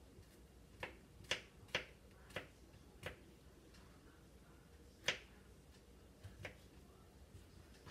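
Kitchen knife slicing mushrooms on a plastic cutting board: about eight sharp, irregular taps of the blade hitting the board, with a pause of about two seconds in the middle.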